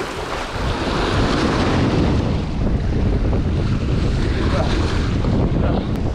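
Wind buffeting the microphone over small waves washing and splashing against shoreline riprap rocks.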